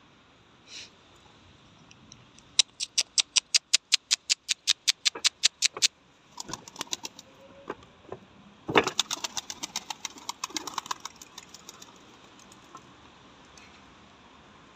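Domestic pigeons' wings clapping and flapping in flight: a run of loud, sharp claps at about seven a second lasting some three seconds, then a second, denser burst of claps about halfway through that fades out over a couple of seconds.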